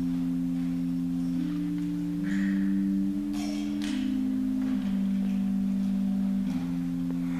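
Church organ playing soft sustained notes, two voices held and moving slowly in steps. There are a few faint clinks and rustles about halfway through.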